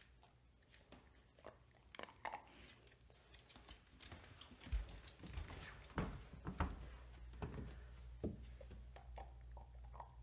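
A dog gnawing and mouthing a Whimsies dental chew: faint, irregular crunches and clicks, busiest in the middle.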